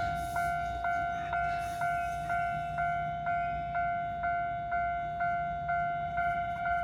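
Japanese level-crossing warning alarm ringing, its clanging strikes repeating about twice a second, with the low rumble of a train at the crossing underneath and two short hisses near the start.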